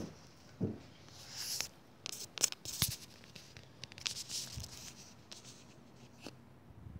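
Handling noise from a handheld camera being moved: scratchy rubbing and scraping broken by several sharp clicks and knocks, dying away about six seconds in.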